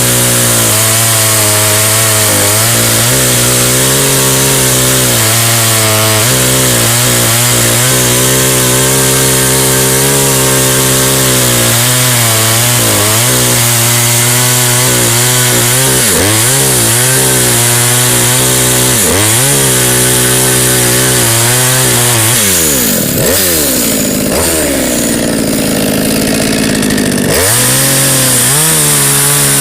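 Ported Poulan Pro 34cc two-stroke chainsaw running at high revs through a cut. Its pitch dips briefly again and again as it loads up, drops well down for several seconds late on, then climbs back to full revs near the end.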